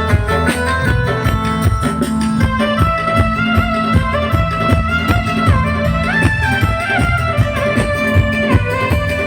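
Instrumental music with a steady drum beat under a sustained melodic lead line that slides between notes.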